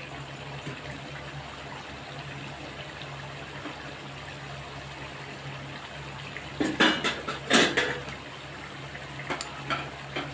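Partridge masala gravy simmering in a steel kadai over a gas burner, a soft steady bubbling over a constant low hum. About seven seconds in, a short cluster of loud sharp noises cuts in.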